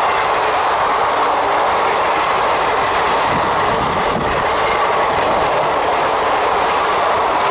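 Blue passenger coaches of an Indian Railways express train running past on the adjacent track: a steady, loud rush of wheels on rail.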